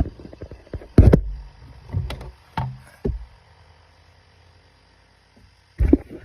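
Hand tools and metal parts clunking and knocking during work on a car's starter, in a handful of separate strikes. The loudest comes about a second in, a few lighter ones follow over the next two seconds, and one more comes near the end.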